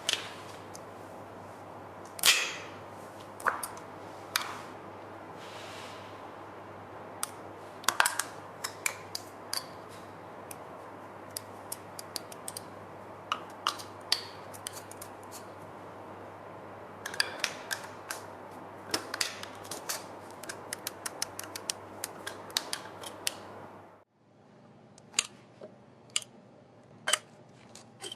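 An RV keyless door lock and its metal fittings being handled and fitted by hand: scattered sharp clicks and knocks, some in quick clusters, over a steady low hum. The hum cuts off abruptly about four seconds before the end while the clicking goes on.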